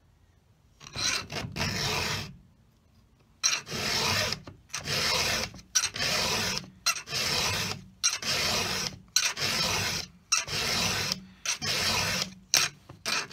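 Round chainsaw file rasping through the cutter teeth of a saw chain during hand sharpening. One stroke, a pause of over a second, then a steady run of strokes at about one a second.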